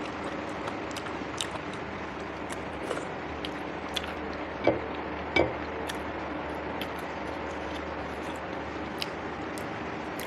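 Close-up eating sounds: wet chewing and small mouth clicks, with two louder short bites or slurps about halfway through, over a steady background hum.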